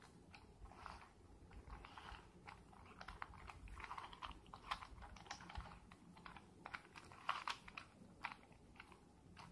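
Rubik's cube being turned by hand: faint, quick plastic clicks and clacks of its layers rotating, coming in irregular runs.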